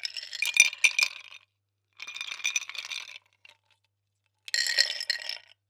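Ice cubes dropped into a glass, clinking and rattling against it in three separate bursts about two seconds apart, the cubes ringing the glass.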